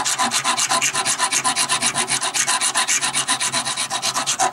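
Flat hand file rasping the remains of old lining off a steel Solex drum brake shoe, in quick, evenly spaced back-and-forth strokes.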